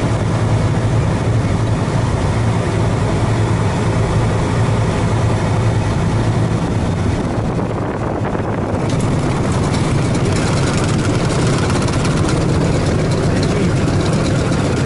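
Light aircraft's piston engine and propeller running steadily with a deep, even drone, heard inside the cockpit. From about nine seconds in, a fine rapid rattle joins it.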